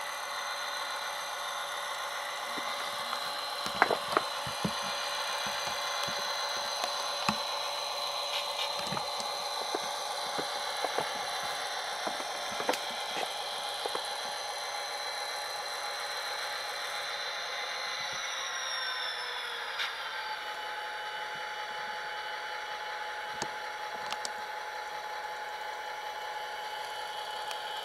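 Tsunami sound decoder in an HO-scale Athearn SD45T-2 model locomotive playing its EMD 20-645 diesel engine sound through the model's small speaker: a thin, steady drone. About two-thirds through, the engine sound falls in pitch as if throttling down, and near the end it starts to rise again. A few sharp clicks are heard, the loudest about four seconds in.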